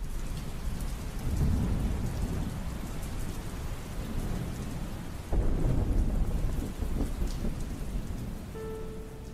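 Steady rain with rolling thunder: one rumble builds about a second and a half in, and another breaks suddenly about five seconds in and rolls on. Near the end a piano note sounds over the rain.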